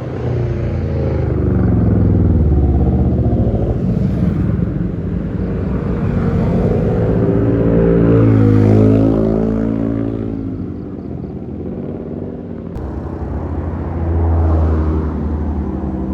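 Road traffic passing at speed, with the engines of large vehicles such as buses rising and falling in pitch as they go by. The loudest pass comes about eight to nine seconds in, and another about fourteen seconds in.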